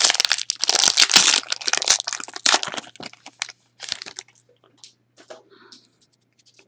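Crinkling and tearing of a trading card pack's wrapper for about three seconds, then a few light rustles and clicks that fade away.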